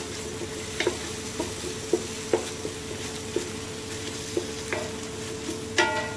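Ginger-garlic paste, whole spices and ghee frying with a steady sizzle in an aluminium pot, stirred with a wooden spatula that knocks irregularly against the pot. A short metallic ring near the end.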